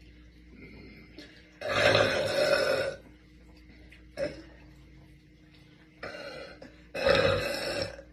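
A girl burping deliberately: two long, loud burps of about a second each, the first nearly two seconds in and the second near the end, with shorter, quieter sounds between them.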